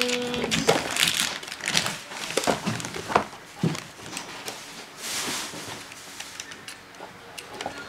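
Plastic packaging crinkling and rustling, with sharp clicks and knocks as a plastic toy is handled and lifted out of its cardboard insert tray.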